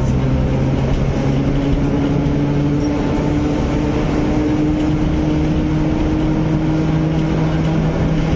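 A 1914 electric tram running along street track, heard from on board: a steady rumble of the wheels on the rails with a motor and gear whine that rises slowly in pitch as it picks up speed.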